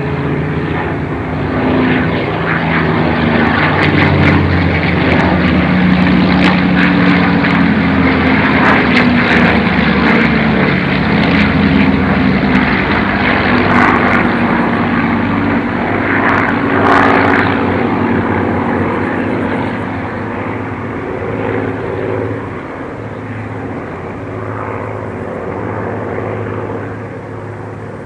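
Piston engine and propeller of a single-engine WWII fighter in aerobatic flight overhead. The engine note swells over the first couple of seconds, stays strong through the middle and eases off over the last several seconds as the aircraft moves away.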